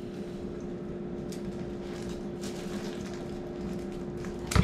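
Quiet kitchen room tone with a steady hum and faint handling noises as bread is handled, then a short, loud rustle or knock at the very end.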